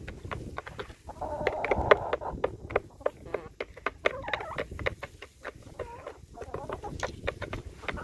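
Domestic chickens clucking close by, a quick run of short clucks with a longer call about a second in.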